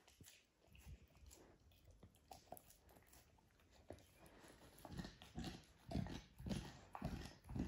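Puppy chewing on a rawhide chew bone made of pressed animal skin. The gnawing is faint at first, then becomes louder chomps about twice a second in the second half.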